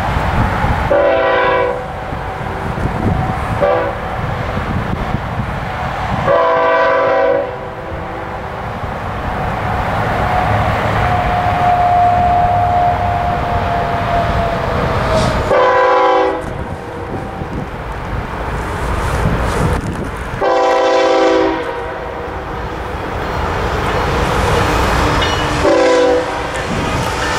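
Westbound BNSF freight train, with diesel locomotives leading, sounding its multi-note air horn in about six blasts, long and short, as it approaches. A steady low engine rumble runs beneath the horn.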